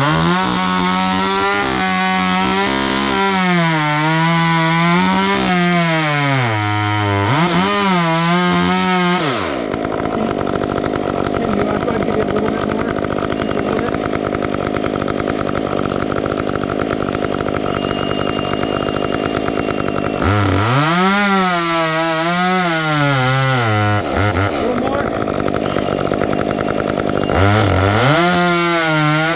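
Two-stroke chainsaw cutting wood, its engine pitch dipping and recovering as the chain loads up in the cut, in three spells of cutting. Between the spells it runs steadily with less load.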